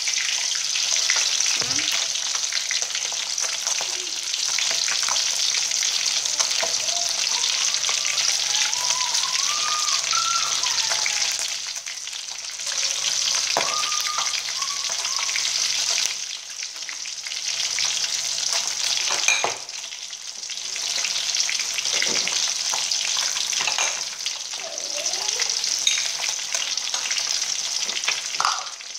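Hot oil sizzling and crackling steadily as two whole scored fish shallow-fry in a wok.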